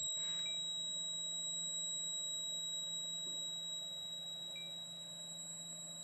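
Piezo buzzer of a homemade ESP8266 (NodeMCU) door alarm sounding one steady, high-pitched tone: the alarm has been triggered because the door was opened, separating the magnetic reed door sensor, while alarm mode was on.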